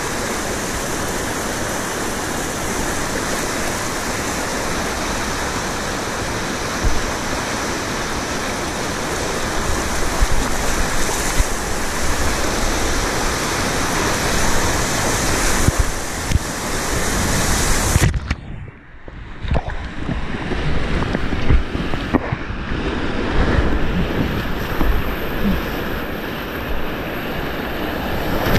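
Whitewater rapids of the Merced River rushing and splashing around a kayak, heard close up from a camera on the boat with spray hitting it. About two-thirds of the way in the sound turns suddenly dull and muffled, with low thumps and splashes.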